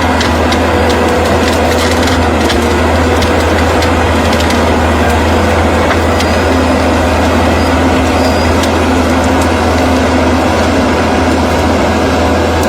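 A heavy land-clearing machine's engine running steadily under load, with wood cracking and splintering as trees and brush are broken.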